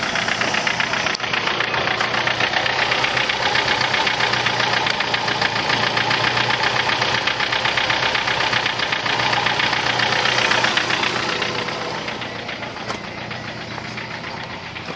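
Four-cylinder Ford Zetec engine idling steadily while it supplies a jump start through jumper cables. The sound swells over the first couple of seconds and fades after about eleven.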